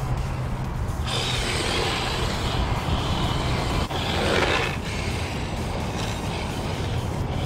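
Yokomo YD-2 SX III electric RC drift car driving and sliding on asphalt: the electric drivetrain and hard drift tyres hissing across the pavement, loudest about four seconds in as it slides close by.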